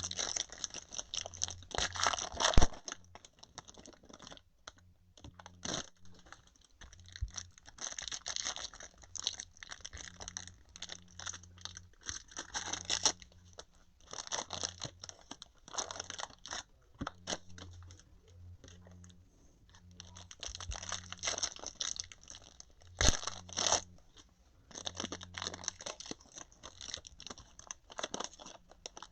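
Trading card pack wrappers being torn open and crinkled, with cards rustling and clicking as they are handled and shuffled through, in irregular bursts.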